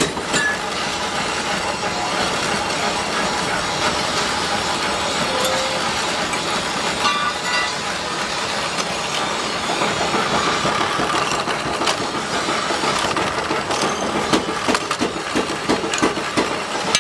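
Bench drill press motor running steadily while its bit drills through a cleaver's handle, with a few sharp knocks near the end.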